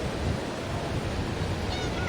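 Ocean surf washing steadily as a continuous roar of waves, with a faint high chirping call near the end.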